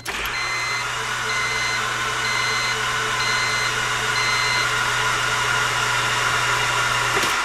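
The Honda Civic's starter motor cranks the remanufactured engine with the spark plugs out, turning it over with an even whir and no compression pulses to pump oil through the engine before its first start. The cranking stops near the end. A chime beeps about once a second through the first half.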